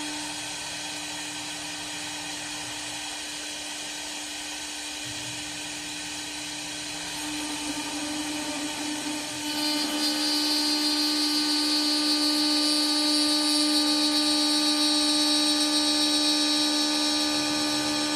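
Multi-function CNC wood lathe with its spindle motor running, a steady high-pitched machine whine. About ten seconds in it wavers and then grows louder, with a higher whine added on top.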